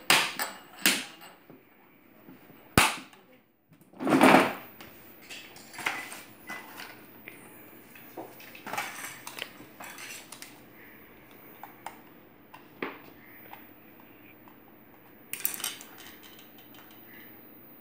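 Hard plastic parts and packaging being handled during assembly of a ride-on toy car: scattered clicks, knocks and rattles, with a sharp crack about three seconds in and a louder clatter about a second later.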